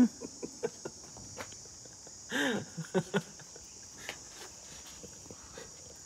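Steady high-pitched insect drone, with scattered light footsteps and taps on a steel platform and a short voiced exclamation about two and a half seconds in.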